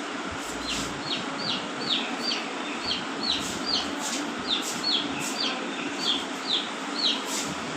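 A parrot calling a quick series of short, sharp screeches, each falling in pitch, about two a second.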